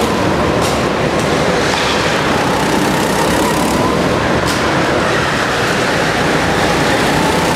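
Several go-kart engines running around an indoor track, a loud continuous mass of engine noise in an enclosed hall, with engine notes rising and falling as the karts speed up and slow for the turns.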